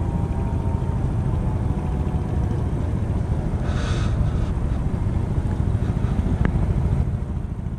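Wind buffeting an action camera's microphone: a steady low rumble that eases off near the end, with a brief hiss about four seconds in.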